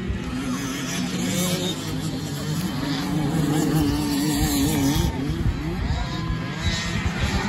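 Motocross dirt bike engines revving up and down as riders race around the dirt track.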